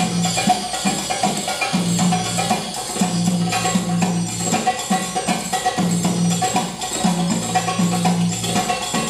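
Recorded Egyptian tabla (darbuka) solo played at a quick pace, with crisp high strokes rattling over deep, ringing tones that come and go.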